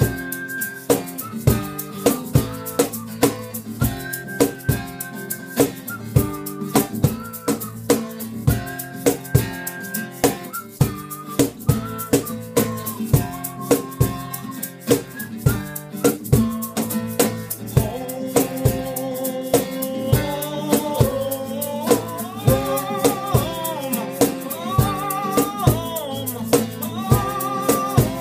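Instrumental break of a folk-style sea song: a band playing over a steady drum beat, with sustained chords and a melody line. About two-thirds of the way through, a higher wavering lead melody comes in.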